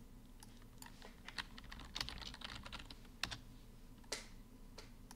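Faint, irregular clicks of a computer keyboard and mouse, a dozen or so scattered sharp taps over a low steady hum.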